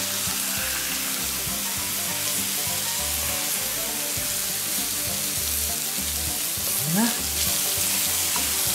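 Burger patties and sliced vegetables sizzling on a hot, oiled steel fire plate as the patties are pressed flat with a burger press. Background music with a low repeating beat plays underneath.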